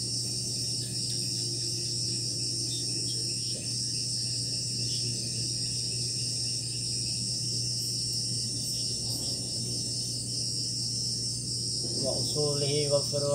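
A steady, high-pitched chorus of crickets and other night insects over a low steady hum. A voice starts speaking quietly near the end.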